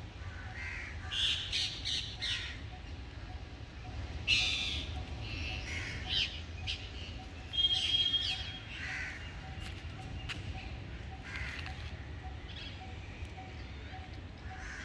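Crows cawing, several separate calls a few seconds apart, with other birds calling in between, over a low steady rumble.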